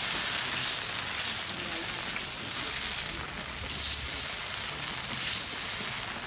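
Garlic and anchovies sizzling steadily in a disco (plow-disc pan) over a wood fire: an even frying hiss.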